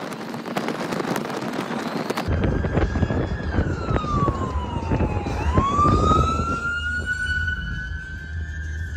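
Wind buffeting and road noise in an open-topped vehicle, then, about two seconds in, a siren wailing: its pitch falls slowly, then rises slowly again.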